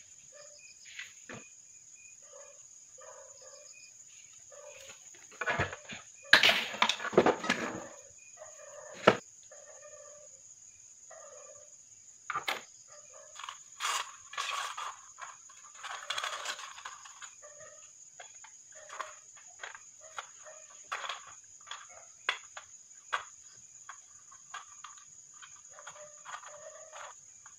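Aluminium cans and wire being handled: scattered clinks, taps and rustles, loudest about six to seven seconds in and with a sharp click around nine seconds. Steady cricket chirring underneath, and a hen clucking now and then.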